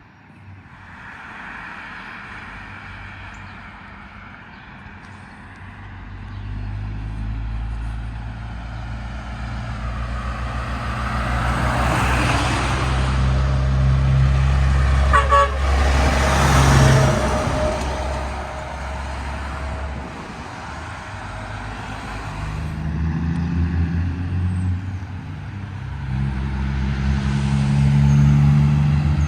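Train horn sounding a chord of steady tones as a diesel locomotive approaches. Then the locomotive's engine rumble and wheel noise build to a peak as it passes, with a run of clicks in the middle. Near the end a second engine drone rises.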